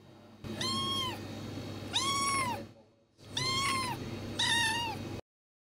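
Young ginger kitten meowing four times in high-pitched, arching calls, the last one shorter and wavering, then cut off abruptly.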